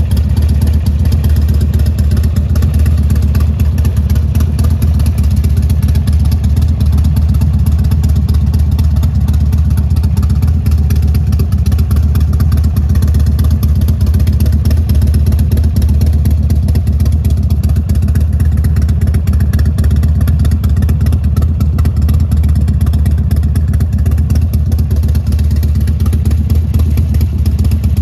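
Buell XB12S Lightning's 1203 cc air-cooled V-twin idling steadily, with no revving.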